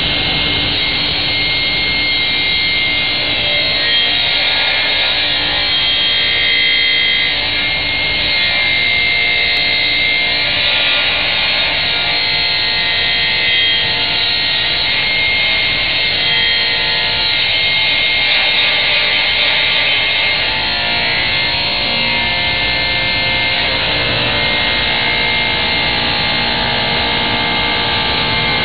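Sliding table panel saw running and cutting through a large sheet of board: a steady, loud high-pitched whine of the spinning blade over a rushing cutting noise.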